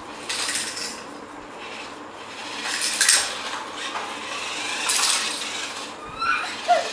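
Small die-cast Hot Wheels toy cars clattering against each other as a radio-controlled monster truck rams and shoves them, in three or four short bursts of rattling.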